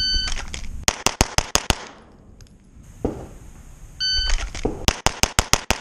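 Shot-timer start beep followed by a rapid string of about six pistol shots. A second beep comes about four seconds in, followed by another string of about six shots near the end.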